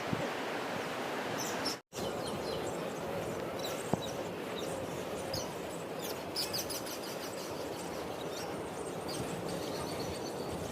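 Outdoor ambience: a steady background hiss of wind and surf-like noise with small birds chirping repeatedly over it. There is one sharp click about four seconds in, and the sound cuts out completely for a moment just before two seconds in.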